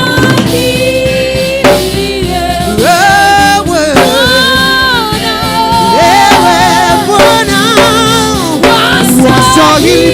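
Live gospel worship singing with instrumental accompaniment: long held notes with vibrato that rise and fall between phrases.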